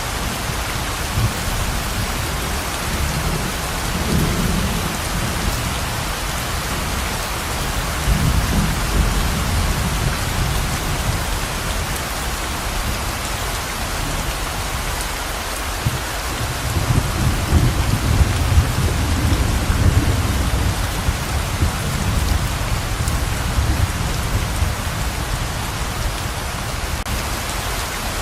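Heavy, steady rain pouring down, with low rolling rumbles of thunder swelling about four seconds in, again around eight to ten seconds in, and most strongly from about seventeen to twenty-one seconds in.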